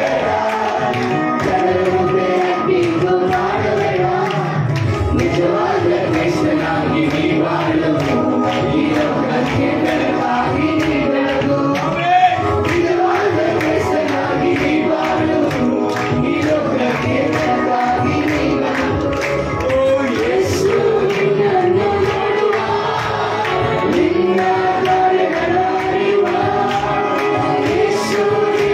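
A man singing a Christian worship song through a microphone and PA, with other voices singing along.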